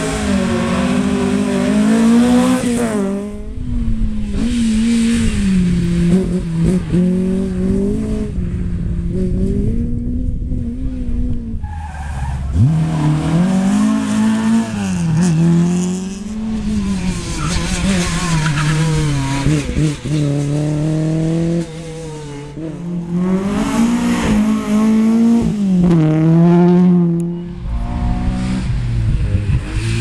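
Historic rally cars driven hard one after another, their engines revving up and dropping back with each gear change. The sound breaks off abruptly between passes.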